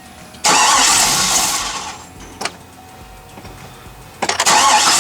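The 6.0 L V8 of a GMC Yukon Denali being cranked by its starter twice, each try about a second and a half long and dying away, with a click between them. The engine turns but does not fire because there is no fuel pressure at the rail, which the owner puts down to a failed fuel pump.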